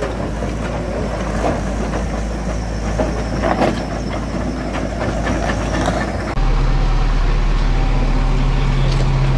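JCB backhoe loader's diesel engine running at a landslide clearance, with scattered knocks over it. About six seconds in, the sound switches abruptly to a louder, steady low engine drone.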